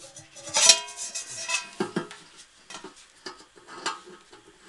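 Stainless steel tank of a cold fog generator clanking and ringing as its lid-mounted blower unit is handled on it: one loud ringing clank a little over half a second in, then several lighter knocks and rattles.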